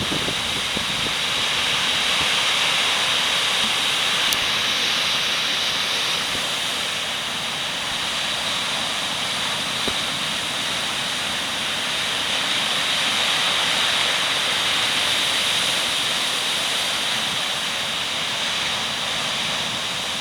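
Steady rushing roar of a coastal storm: gale-force wind, heavy rain and breaking surf blended together, swelling and easing slowly.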